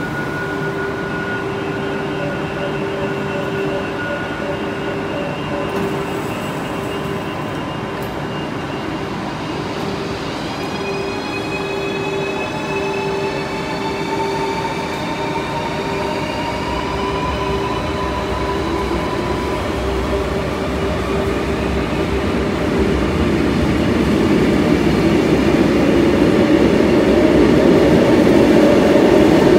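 Renfe double-deck Cercanías electric commuter train pulling away from the platform. A steady electrical hum gives way, about ten seconds in, to the traction drive's whine rising in pitch in several tones, and the train's running noise grows steadily louder as it picks up speed.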